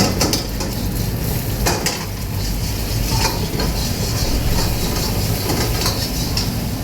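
Food sizzling while being stir-fried in a pan, with a metal spatula scraping and clanking against it a few times.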